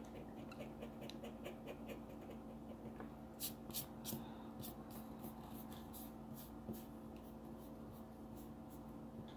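A coin scraping the silver coating off a scratch-off lottery ticket in short repeated strokes, the strokes stronger from about three and a half seconds in, over a faint steady hum.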